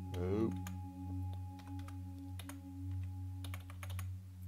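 Typing on a computer keyboard: scattered, irregular key clicks as words are typed, over a steady low hum.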